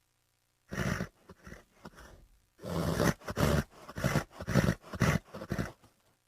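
A horse vocalizing: one short call about a second in, then a run of about seven quick pulsed calls in a row.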